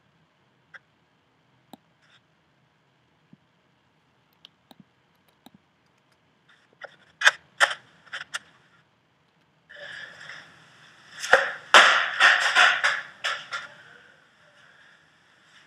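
Choppy snatches of the footage's recorded audio, heard as the editing timeline is scrubbed. Faint scattered clicks come first, then a few sharp knocks about seven seconds in, then a dense run of knocks over hiss from about ten to fourteen seconds in.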